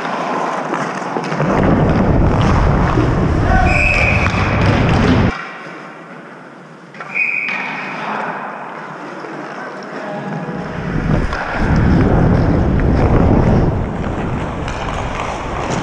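Rumble and wind buffeting on a helmet-mounted camera's microphone in two long stretches, with a quieter gap between them and two brief high-pitched calls, about four and seven seconds in.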